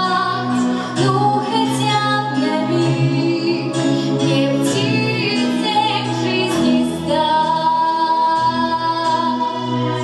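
A girl singing a Russian song into a microphone over instrumental accompaniment, holding one long note from about seven seconds in.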